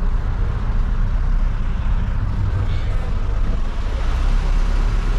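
City bus engine running, a steady low-pitched noise heard from inside the passenger cabin.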